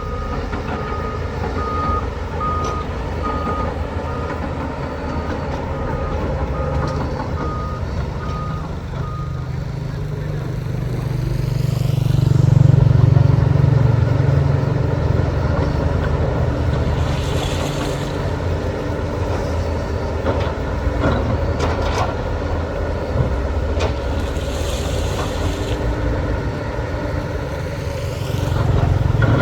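Heavy diesel construction machinery running, with a reversing alarm beeping evenly for the first nine seconds or so and then stopping. The engine swells about twelve seconds in, and two short hisses come later.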